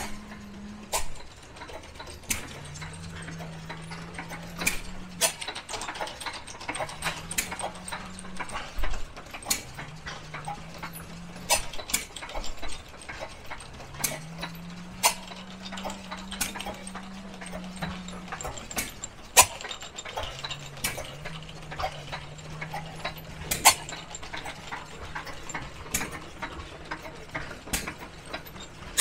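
Antique stationary gas engines running: irregular sharp pops and clicks, under a low hum that several times rises in pitch, holds for one to four seconds and then cuts out.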